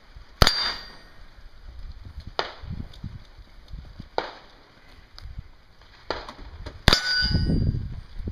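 Colt 9mm submachine gun fired at a slow pace, about five spaced shots, the first and last the loudest and followed by a short metallic ring.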